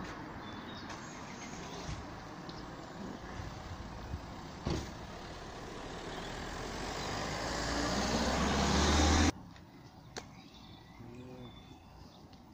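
Traffic noise from a vehicle on the street: a steady rush with a low rumble that swells over a few seconds and cuts off suddenly about nine seconds in. A single sharp knock comes about five seconds in, and the street is quieter after the cut.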